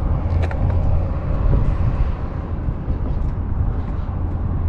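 Wind buffeting the microphone: a steady, fluctuating low rumble, with a few faint clicks about half a second in.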